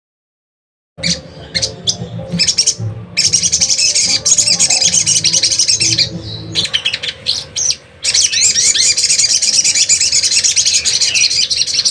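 Caged young sogon sunbird singing a rapid, high twittering song, starting about a second in, with a short lull a little past the middle.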